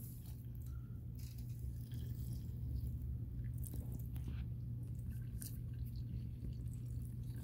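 Faint trickle of cleaning solution pouring in a thin stream from a plastic gallon jug onto a roll of dry wipes in a plastic bucket, the liquid soaking into the paper, over a steady low hum.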